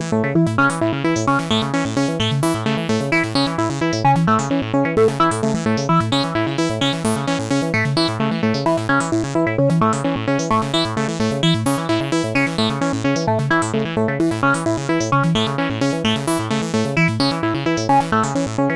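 Synthesizer ringtone made with FL Studio's Sytrus synth: a fast, evenly repeating pattern of electronic notes over a pulsing bass, running on without a break.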